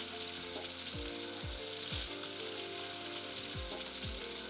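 Meat sizzling in a metal tray over hot embers: a steady frying hiss. Background music with a low, regular beat plays under it.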